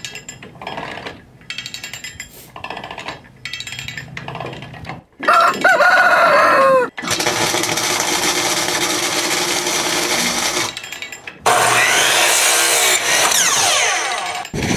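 A rooster crows once, about five seconds in, its call falling in pitch. Before it come short choppy crackling sounds; after it come about four seconds of steady dense machine noise, a short break, then a power tool running with a rising whine near the end.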